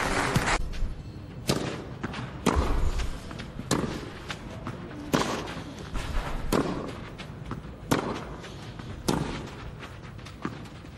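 Tennis ball struck back and forth by racket strings in a baseline rally on a clay court: sharp single hits roughly every second and a half.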